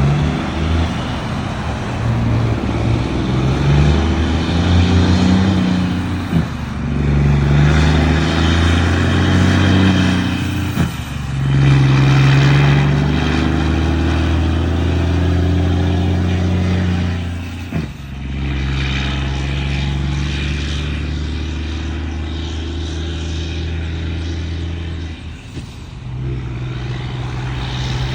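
Volvo FH 540 truck's 13-litre straight-six diesel pulling under load through an aftermarket exhaust, its note dropping briefly at gear changes about 6, 11, 18 and 25 seconds in.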